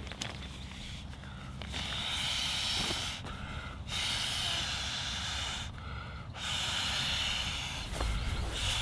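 Inflatable sleeping pad being blown up by mouth: a series of long rushes of air into the valve, each about one and a half to two seconds, with short pauses for breath between them.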